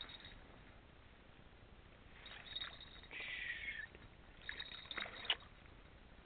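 Water splashing and sloshing as a hooked fish thrashes at the surface and a landing net is pushed into the water under it, in two spells of splashes, the second ending in a sharp splash near the end.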